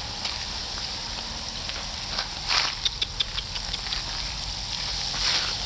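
Steady hiss of water spraying from a watering hose onto potted succulents, swelling briefly twice, with scattered faint ticks.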